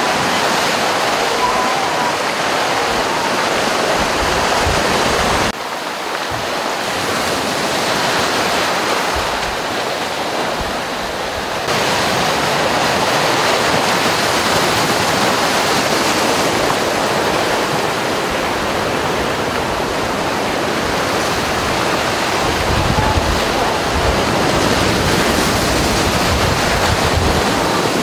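Sea surf washing and breaking against a rocky shore, a steady rush of noise, with low rumbling coming in near the end.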